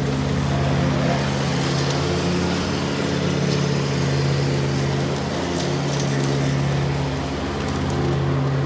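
Kubota zero-turn mower's engine running at a steady pitch while the mower cuts grass.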